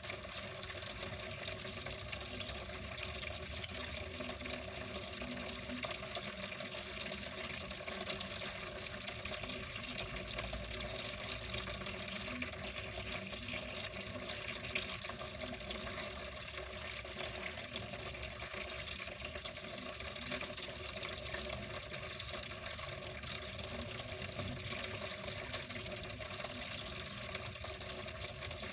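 Water flowing steadily in an even, unbroken stream.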